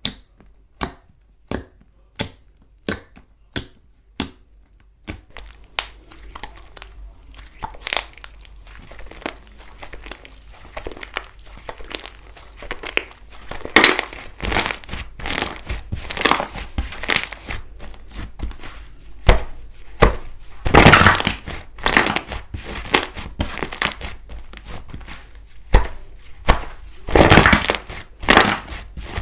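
Slime being pressed and squeezed by hand: about seven sharp clicks, one every two-thirds of a second or so, then dense crackling and crunching, with louder bursts around the middle and near the end.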